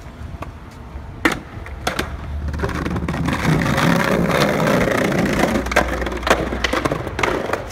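Skateboard wheels rolling over brick pavers: a rough, rattling rumble with quick clacks as the wheels cross the brick joints, after a few sharp knocks of the board in the first two seconds.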